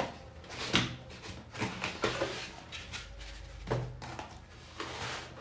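Cardboard box and foam packing being handled as the packing is lifted out: a handful of short knocks and scrapes spread over a few seconds, with some rustling in the middle.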